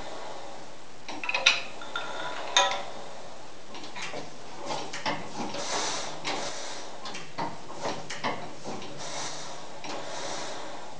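Metal clanks and clicks from the 1903 40 hp Union stationary gas engine being worked by hand in an attempt to start it: two sharp knocks in the first few seconds, then a string of lighter, irregular clicks. The engine does not fire and run, which is put down to possibly too much gasoline.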